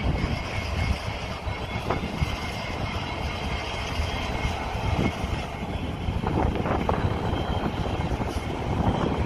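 Illinois Central diesel locomotive passing slowly, its engine running steadily under a faint high whine, with a few sharp clanks from the wheels on the rails.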